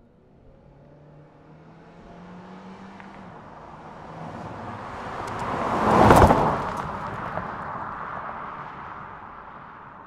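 A car driving past: its engine hum and tyre noise grow steadily louder, peak sharply about six seconds in as it passes closest, then fade away.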